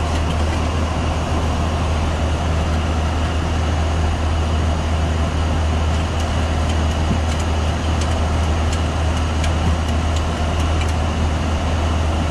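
Steady flight-deck noise of a Boeing 737-800 in flight: an even rush of airflow and engine noise over a deep constant hum, with a faint high whine.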